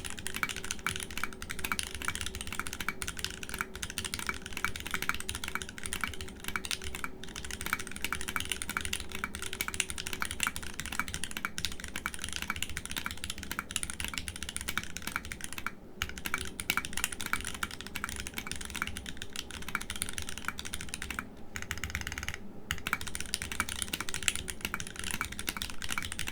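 Continuous typing on a foamless, O-ring-mounted aluminium Molly60 v2.5 keyboard with heavily lubed Gateron x WJBY Long Jing Tea tactile switches (POM housings) and thin ABS blank keycaps. The keystrokes run densely, with brief pauses about sixteen and twenty-one seconds in.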